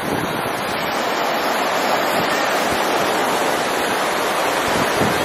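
Ocean surf washing up the beach: a steady rush of shallow breaking waves.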